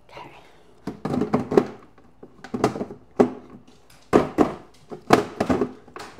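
Containers and plastic fridge parts being handled and set down inside a refrigerator: a run of knocks and clatters, about one or two a second, some with a short ring.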